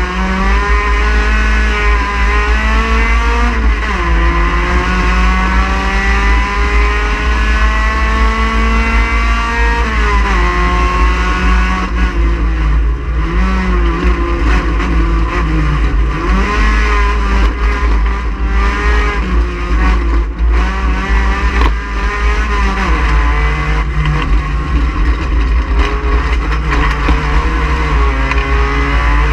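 A touring race car's engine under hard racing load, climbing in pitch through two long pulls with sharp drops about 4 and 10 seconds in, like gear changes. After that the revs rise and fall in shorter swings, over a heavy low rumble.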